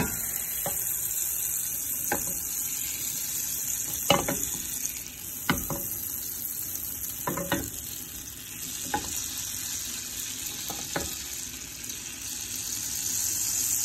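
A stick of butter melting and sizzling in a hot nonstick frying pan: a steady frying hiss with a few sharp pops or clicks now and then.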